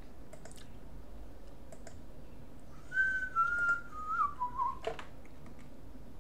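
A person whistling a few notes that step down in pitch, from about three seconds in for roughly two seconds, with a few faint mouse clicks around it.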